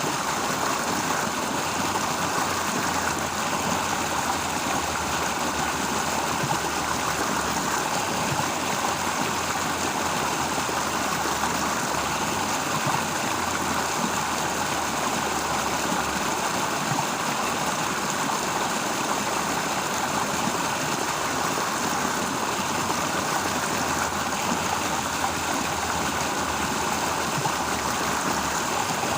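Steady rush of flowing water, an even noise with no breaks or single events.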